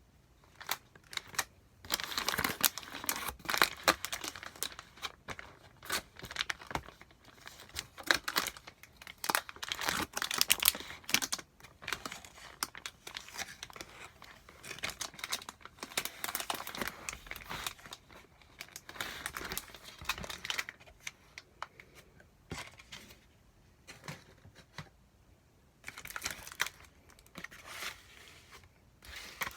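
Food delivery packaging being torn open and crumpled by hand: irregular crinkling and tearing in bursts, with a quieter stretch a few seconds long near the end before it picks up again.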